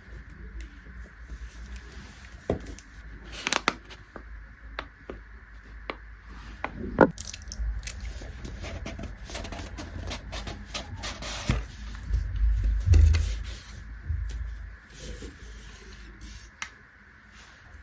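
Close hand-work sounds: irregular scraping, squishing and light clicks and knocks, with a short hiss about three and a half seconds in and a few heavier low thumps around twelve to fourteen seconds in.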